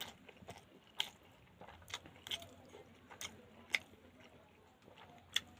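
Close-up eating of pangas fish curry: sharp, wet mouth clicks and smacks at uneven intervals while chewing.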